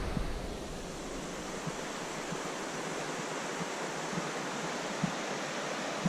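A steady rushing hiss of outdoor noise. Wind buffets the microphone and dies away within the first second.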